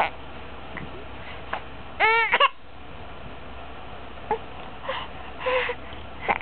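Four-month-old baby hiccupping: a string of short, sharp hiccups at irregular intervals, with a brief high-pitched cry about two seconds in.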